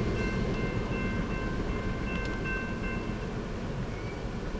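Railroad crossing bell ringing in a rapid repeating pattern, stopping about three seconds in, over the low rumble of a departing freight train that fades away.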